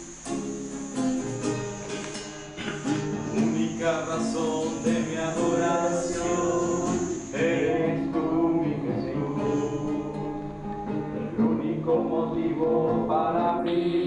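A group of voices singing a church song to a strummed acoustic guitar.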